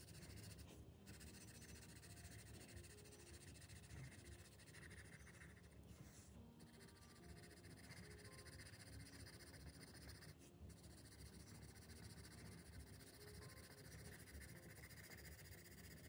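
Faint scratching of a graphite pencil on sketchbook paper, made in short repeated strokes while shading palm fronds, with a few brief pauses.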